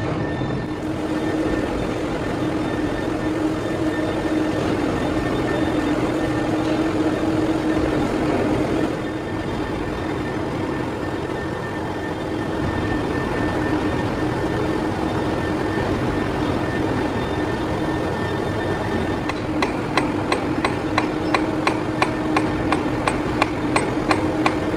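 Metal-cutting machine tool running steadily with a constant hum. Near the end, a regular ticking or knocking, about three to four strikes a second, joins it.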